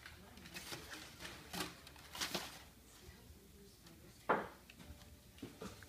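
Small dog rummaging in a cardboard box of crumpled brown packing paper: the paper rustles and crinkles in scattered bursts, with one sharper, louder crackle about four seconds in.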